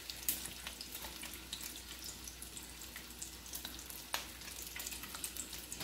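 Slices of smoked streak-of-lean pork frying in a skillet: a steady sizzle with scattered small crackles and pops as the meat renders its fat.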